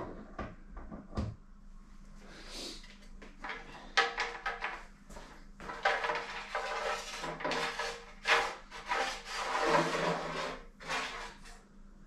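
Rear brake cable housing being pulled out through the internal routing of a carbon bicycle frame: irregular scraping and rubbing with small knocks and clicks, busiest in the second half.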